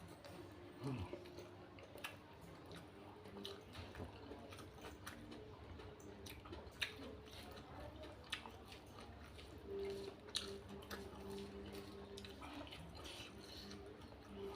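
A person chewing and eating close to the microphone: faint scattered wet smacks and clicks, with a low hum that comes and goes underneath.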